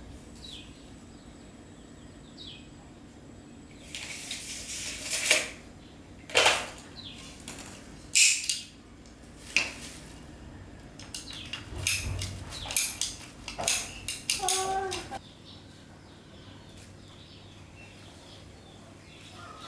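A run of irregular metallic clinks and knocks between about four and fifteen seconds in, with a low steady hum underneath that stops near the end. A few short bird chirps come in the first seconds.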